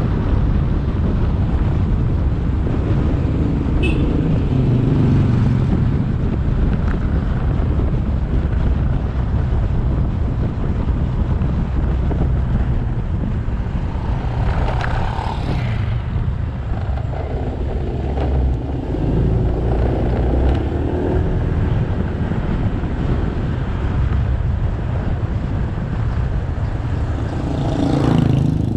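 Motorcycle engine running steadily while riding, with road and wind noise. There is a louder whoosh about halfway through and another near the end.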